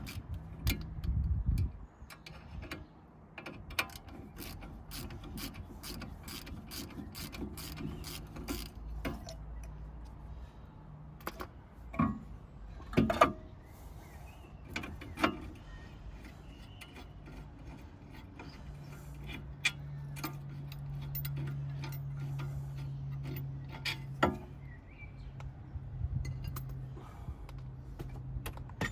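A hand ratchet clicking as brake bolts are worked, with several sharp metal knocks of tools. A low steady hum comes and goes twice.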